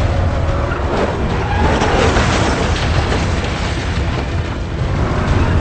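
Film action-scene sound of a car chase: cars' engines running hard and a police car crashing through a luggage cart, with heavy impacts and music under the mix.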